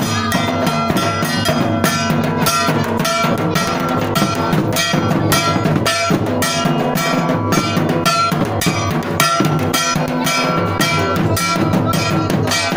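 Music with a steady drum beat, regular drum strokes over sustained pitched instruments.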